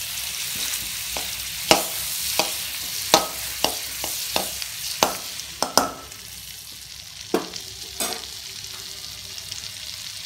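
Butter melting in hot oil in a metal kadai, sizzling with a steady hiss, while a metal spoon stirs it and clinks against the pan about a dozen times. The sizzle eases after about six seconds.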